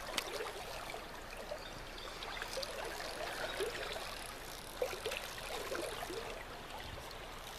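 Creek water running steadily, with small trickling blips and a few faint clicks.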